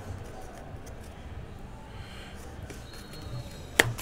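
Low steady room hum with faint scattered ticks, and one sharp click near the end.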